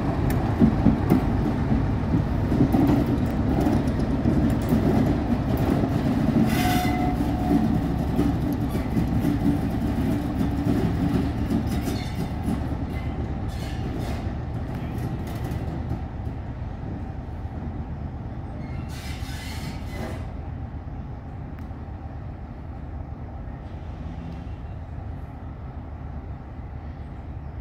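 Class 47 diesel locomotive's Sulzer twelve-cylinder engine running as the locomotive passes close by and pulls away along the line. Its rumble fades steadily into the distance.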